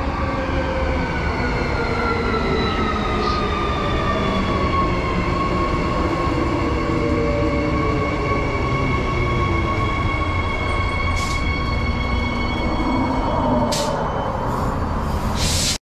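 Transperth electric multiple-unit train passing along the platform: a steady rumble of wheels on rail under the electric motor whine, whose tones fall in pitch over the first few seconds as it draws level, then hold steady. The sound drops out briefly just before the end.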